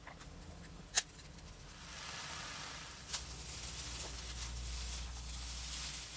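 A silicone spatula stirring and turning fried rice with shrimp in a nonstick frying pan: a steady rustling, scraping hiss that starts about two seconds in. A sharp click about a second in.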